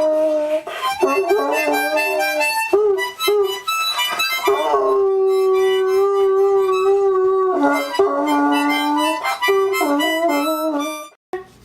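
A harmonica playing chords and held notes while a dog howls along. The sound cuts off suddenly just before the end.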